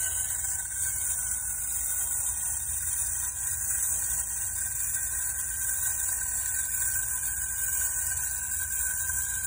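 Clockwork spring motor of a tin wind-up robot toy whirring steadily as the toy walks, with a steady hiss.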